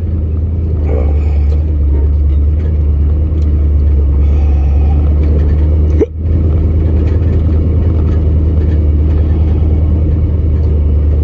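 Old pickup truck's engine running steadily with a low rumble while driving, dipping briefly about halfway through.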